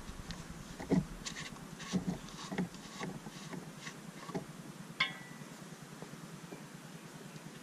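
A few faint clicks and knocks from hands on the stopped engine of a Kubota BX tractor as the oil filler cap is taken off, with a sharper click about five seconds in.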